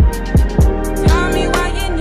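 Background music with a hip hop beat: deep, booming kick drums in an uneven pattern under ticking hi-hats and a gliding melody.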